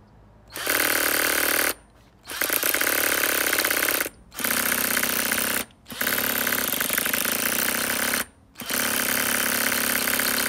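Cordless drill spinning over a Nitro Rustler's small glow-plug nitro engine in five runs of one to two and a half seconds, with short pauses between. The engine cranks but does not catch.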